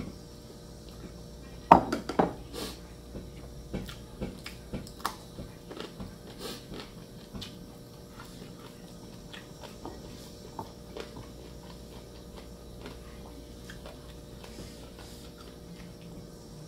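Ceramic bowls and spoons clinking and knocking during a hand-eaten meal, with chewing. The loudest knocks come about two seconds in, followed by a run of lighter clicks that thin out to occasional faint ticks.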